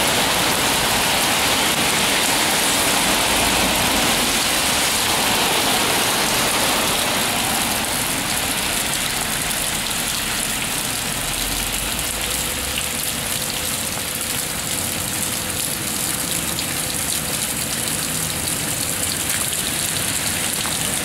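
Steady heavy rain, with rainwater spilling off a roof and splashing down a brick wall; the rush eases slightly about a third of the way in. A faint steady hum comes in about halfway through.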